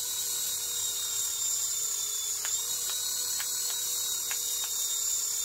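Tiny electric motors of an Iron Man flying-figure toy helicopter spinning its coaxial rotors, a steady high-pitched whir with a few faint ticks.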